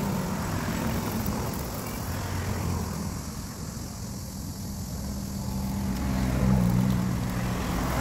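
Road traffic: a motor vehicle's engine hum that grows louder about six seconds in as it passes close by.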